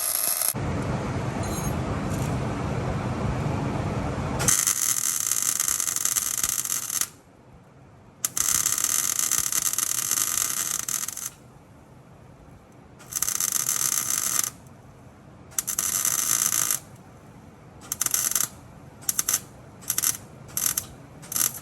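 An electric welder arcing in on-and-off bursts of crackling: a few seconds each at first, then short quick stabs near the end. It is laying a build-up of weld onto a broken bolt stub so the bolt can be backed out. For the first four seconds there is a steady noise instead.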